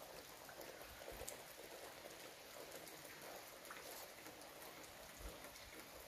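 Faint patter of light rain, with a few scattered drops ticking.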